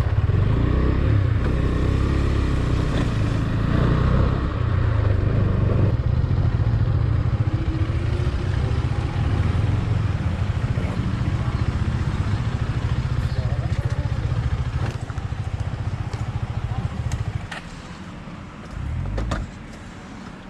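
KTM 390 motorcycle's single-cylinder engine running while riding, heard as a steady low rumble. About three-quarters through, the sound drops off markedly as the bike eases off.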